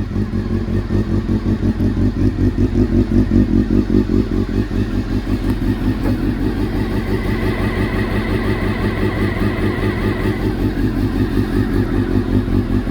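Honda CBR400RR inline-four motorcycle engine idling steadily through its exhaust after repair and carburettor setup. It runs clean, with no stray mechanical noise.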